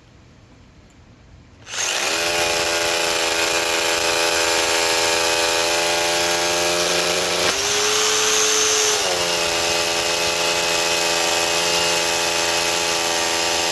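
Bosch GBH18V20 18-volt SDS-plus rotary hammer drilling a 1/2-inch hole in hammer-drill mode with a four-cutter bit. It starts about two seconds in with a steady motor whine over the hammering, changes pitch briefly about halfway, then runs on steadily.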